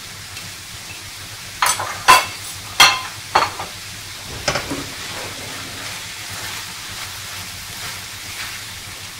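A spoon knocks sharply against a stainless steel frying pan about five times in the first few seconds as spices are added. Shredded chicken, onion and tomato paste then fry with a steady, soft sizzle while being stirred.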